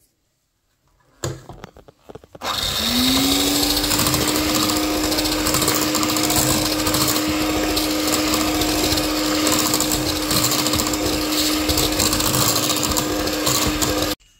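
Electric hand mixer starting up about two seconds in, its whine rising quickly to a steady pitch as its twin beaters whisk chocolate cake batter in a metal pan, then switched off just before the end. A few brief knocks and rustles of handling come before it starts.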